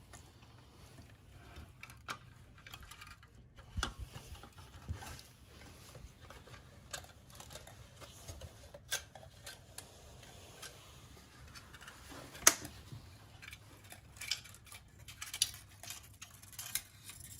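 Scattered light clicks, taps and handling noises from working on the plastic housing and ribbon-cable connections of a car's rear-seat entertainment screen. There is a sharper click about twelve seconds in and a cluster of clicks near the end.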